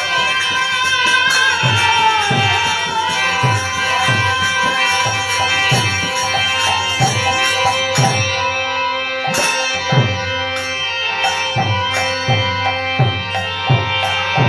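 Bengali kirtan music: a harmonium holds steady notes while khol barrel drums keep a regular rhythm of deep strokes that drop in pitch, about one or two a second. Sharp, crisp strokes stand out more clearly from about halfway through.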